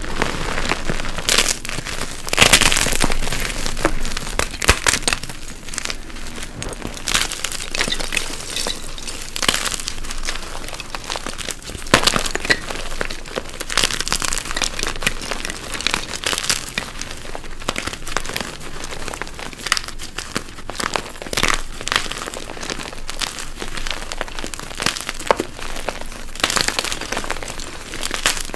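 Blocks of dyed gym chalk being crushed by hand, with a continual crunching and crackling as they crumble to powder and dozens of sharper cracks along the way.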